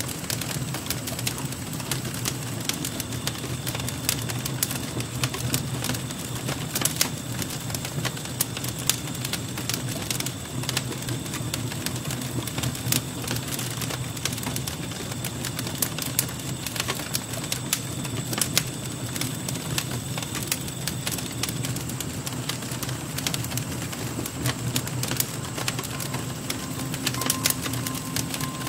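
Wood embers in a metal fire bowl crackling, with many irregular small snaps and pops over a low rumble.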